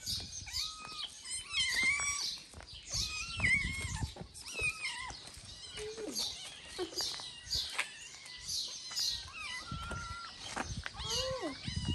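Several kittens meowing over and over, short high-pitched calls that overlap one another.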